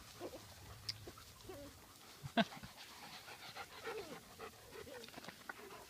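Dog panting softly, with scattered small sounds and one sharp click about two and a half seconds in.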